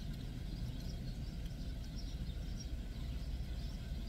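Steady low rumble of background noise heard from inside a parked vehicle, with a few faint high chirps.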